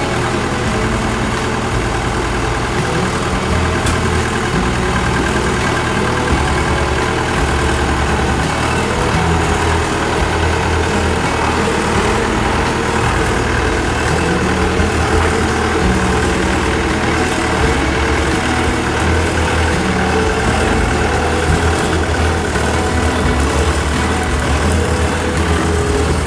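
Kubota DC-93 combine harvester's diesel engine idling steadily.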